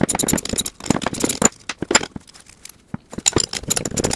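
Ratchet wrench clicking in quick runs as nuts are loosened from a steel plate bracket, with light metal clinks. The clicking eases off for a second or so in the middle, then starts again.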